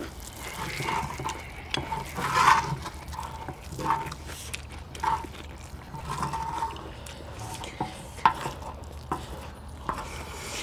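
Spoons scraping and tapping on a large cast-iron cauldron lid as fried rice is scooped off it, in short, irregular strokes, with one sharper click about eight seconds in.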